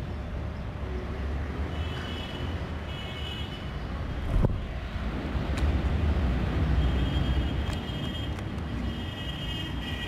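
Steady low outdoor rumble of wind on the microphone and distant city traffic, with a single sharp click about four and a half seconds in. Short high, level tones sound several times.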